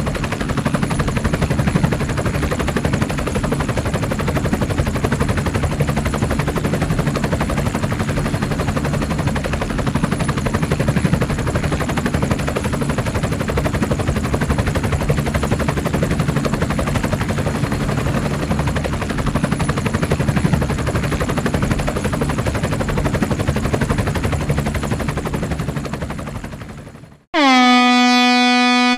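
About 27 seconds of continuous, rapid, dense clattering that stops abruptly, followed near the end by a tugboat-style horn blast that swoops up in pitch and then holds one deep, rich tone.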